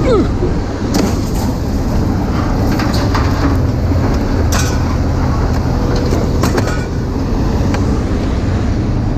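A vehicle driving: a steady low road rumble, broken by scattered rattles and clicks and a short falling squeak at the start.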